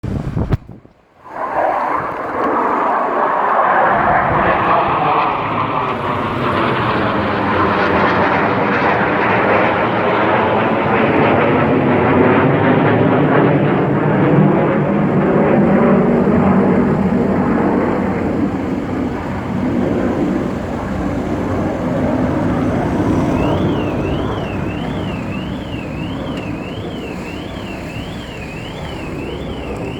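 Military jet aircraft flying past, their engine noise coming in suddenly about a second and a half in, sweeping in pitch as they pass, then slowly fading. A faint warbling high tone joins near the end.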